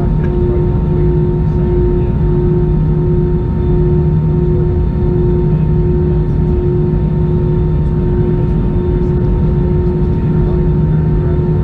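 Inside an Airbus A321 cabin: the steady low drone of the airliner's running jet engines and air systems, with a few steady humming tones over it.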